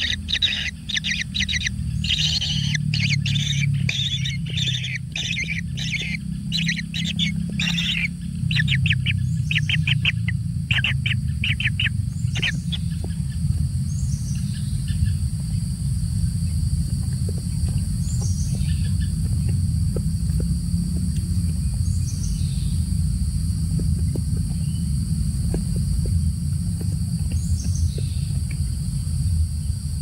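Kingfisher nestling giving fast, raspy begging calls in quick runs, which stop about twelve seconds in and give way to short single calls every couple of seconds. A steady low rumble and a steady high drone run underneath.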